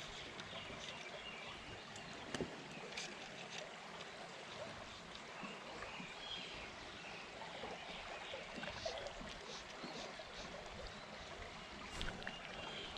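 Steady rush of flowing river water, with a couple of faint knocks.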